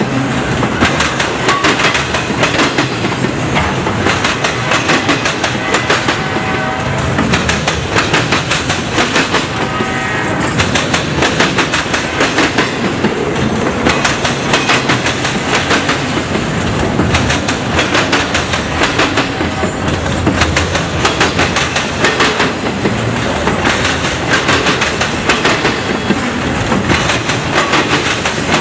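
Freight train of autorack cars rolling past close by, steel wheels clacking rhythmically over the rails in a loud, continuous clatter. A few brief high-pitched tones rise above it.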